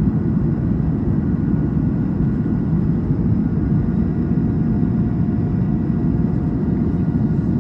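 Steady cabin noise inside an Airbus A220 climbing after takeoff: a deep, even roar of airflow and engines, with a few faint steady whine tones above it.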